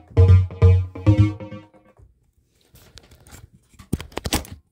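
Electronic breakbeat music played live on an Akai MPC Live II sampler, with heavy bass notes landing about twice a second, stops about two seconds in. Near the end come faint rustles and a few sharp knocks of the camera being handled.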